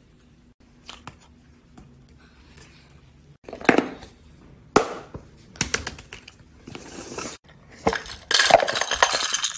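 Small hard objects being handled and knocked together: scattered clicks and clatters, then a dense, loud crackling rattle near the end.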